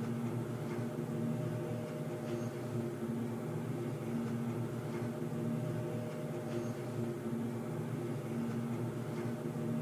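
Underground ambience: a steady, low drone with several held tones, with a few faint ticks scattered through it.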